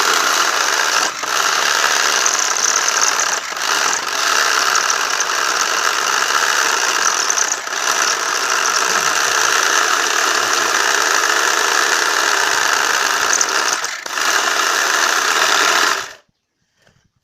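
Homemade jigsaw with a 775 DC motor driving a reciprocating hacksaw blade, running steadily with a few brief dips in level. It cuts off suddenly about sixteen seconds in.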